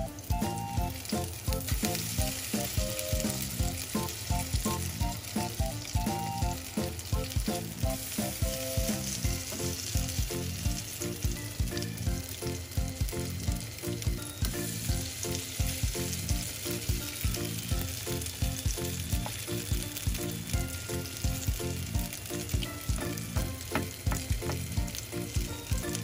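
Sardine-and-vegetable patties frying in shallow oil in a nonstick pan, with a continuous sizzle. Background music with a steady beat plays along.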